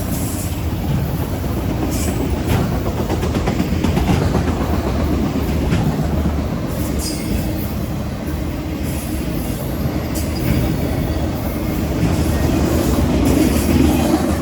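A freight train rolling past: the steady rumble of steel wheels on rail, with occasional clanks from the cars.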